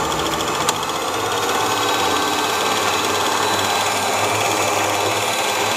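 Electric stand mixer running steadily, its twin beaters whisking egg whites, with one brief click under a second in.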